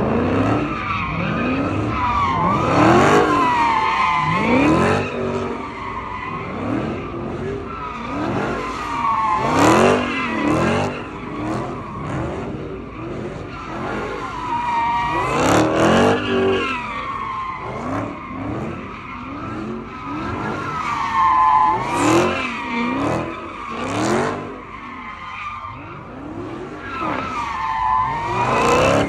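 A car sliding in circles on asphalt: tyres squealing in a wavering howl while the engine revs up and down. It swells and fades every few seconds as the car goes round.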